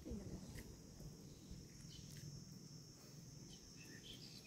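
Near silence: faint outdoor ambience with a steady high insect hum and a few faint clicks.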